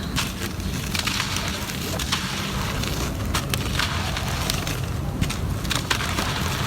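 Gritty cement being crushed and crumbled, with irregular crackling snaps and a gritty rustle throughout, over a steady low rumble.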